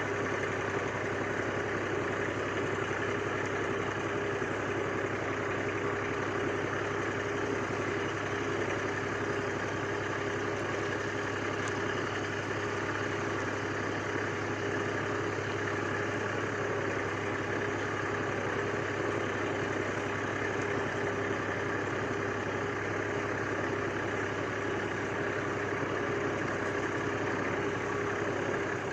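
IMT 539 tractor's three-cylinder diesel engine running steadily.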